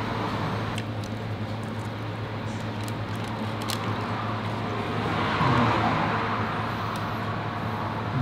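Steady low hum and hiss of room background noise, with a few faint clicks and a slight swell about five seconds in.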